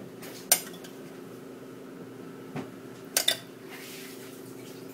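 A metal utensil clinking a few times against the glass dressing bowl and salad plates, with two clinks close together about three seconds in, over a steady low hum.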